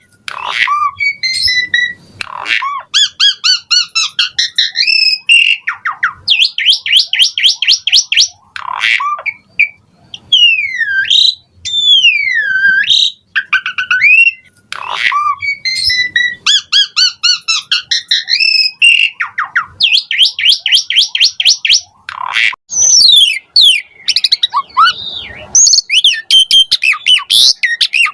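Asian pied starling singing a long, loud, varied song full of mimicked phrases: swooping whistles that rise and fall, fast rattling runs of clicking notes and harsh squawks, one after another without a pause.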